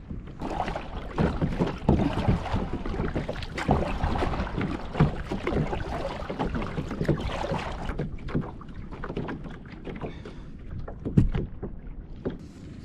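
Water splashing and sloshing against a kayak, with many irregular knocks and a sharp knock about eleven seconds in, dying down near the end.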